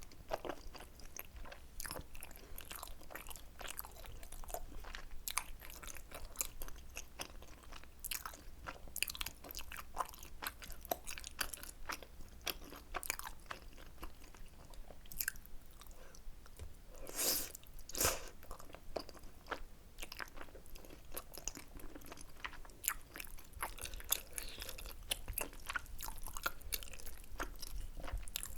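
Close-miked chewing and biting of tteokbokki, the chewy rice cakes in spicy sauce, as many irregular small clicks. Two louder bites come about seventeen and eighteen seconds in.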